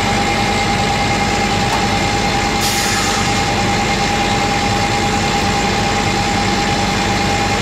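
Truck engine idling steadily with a thin, steady whine over it. A brief hiss comes about two and a half seconds in.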